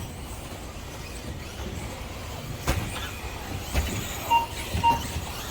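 2WD radio-controlled offroad cars racing on a track: steady motor and tyre noise with a few sharp knocks from about two and a half seconds in. Two short, high electronic beeps come close together near the end.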